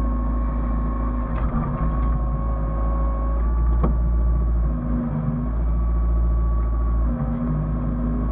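Hyundai excavator's diesel engine running steadily under a deep rumble, with a high whine that dips slightly in pitch several times as the machine works; a sharp click about four seconds in.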